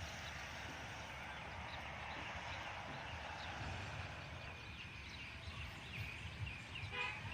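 Outdoor ambience: steady background noise with a low rumble and many small bird chirps. About seven seconds in comes a short, harsh animal call that sounds like poultry.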